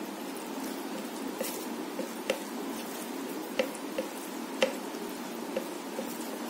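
Fingers squishing and mixing rice with chicken curry on a ceramic plate: soft wet squelching with a handful of sharp clicks, over a steady background hiss.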